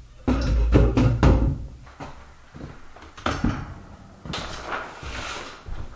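Furniture being set down on a plywood floor: a wooden table and wooden chairs knocked and thumped into place. A cluster of heavy thumps comes in the first second and a half, a sharp knock follows a couple of seconds later, and a rougher scraping stretch of about a second comes near the end.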